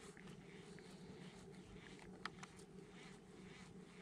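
Near silence: faint background hiss with a few soft ticks.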